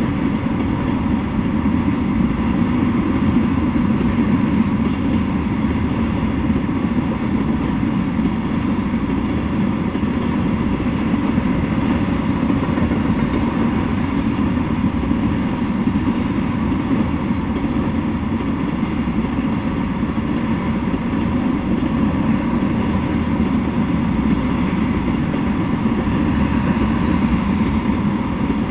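Freight train of tank cars rolling past at a steady speed, an unbroken rumble of wheels on rail.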